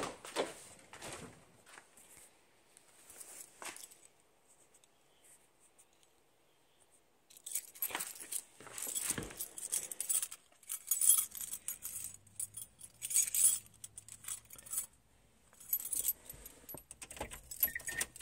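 Car keys jangling and clinking as they are handled, with the knocks and rustle of getting into the car, busiest in the second half; a short beep sounds right at the end.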